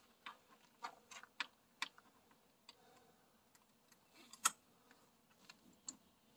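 Light, irregular clicks and rattles of a bimini top's support strap and its buckle being handled and pulled tight, the loudest click about four and a half seconds in.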